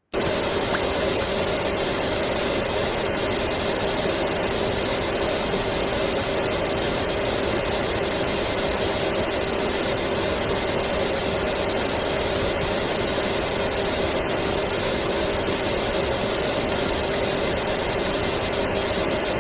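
Vacuum cleaner running steadily: an even rushing hiss of air with a constant motor whine in two steady tones, starting abruptly and holding without change.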